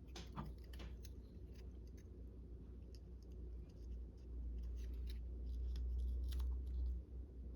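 Scissors snipping paper, with scattered light clicks of paper being handled and a low rumble that swells in the middle.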